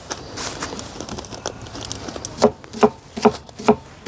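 Gloved hands mixing chunks of lamb and sliced onion in a stainless-steel bowl; wet handling sounds, with a run of four stronger ones a little under half a second apart in the second half.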